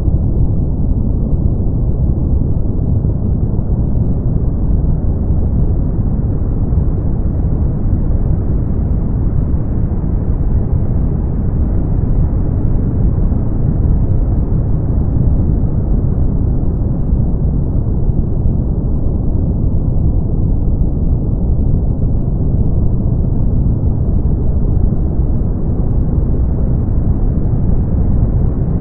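Steady brown noise: a deep, even rumbling hiss with most of its weight in the low end and nothing above the treble, its upper edge swelling and ebbing slowly.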